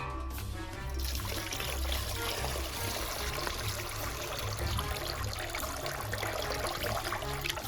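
Water pouring and trickling, starting about a second in, over background music with a low beat.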